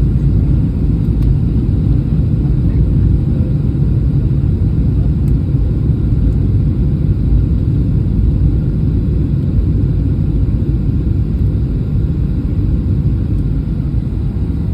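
Steady low rumble of an airliner's engines and rushing air, heard inside the passenger cabin during the approach.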